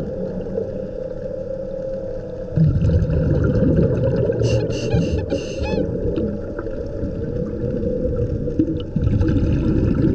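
Scuba diver's regulator breathing underwater: a loud bubbling exhalation about two and a half seconds in and again near the end, with a short hissing inhalation between them, over a steady low rumble.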